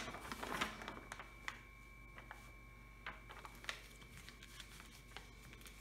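Faint rustling and scattered soft clicks of a hand pressing and smoothing a diamond painting canvas and its plastic cover film flat, over a faint steady high tone.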